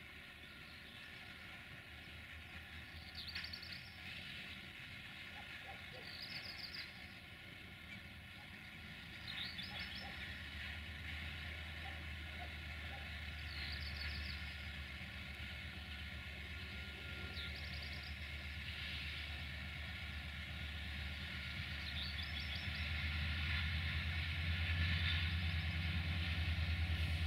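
Low rumble of a railway locomotive that swells from about ten seconds in and keeps growing louder. A bird repeats a short call every three or four seconds.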